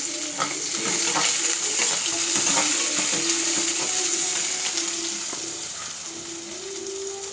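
Sliced onions and split green chillies sizzling in hot oil in a metal kadai, with a perforated steel ladle scraping and clicking against the pan as they are stirred. The sizzle is loudest a couple of seconds in and then eases off gradually.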